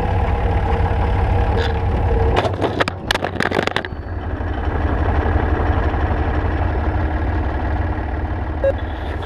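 Tractor engine running close by, with a cluster of sharp metallic clanks and knocks about two and a half seconds in.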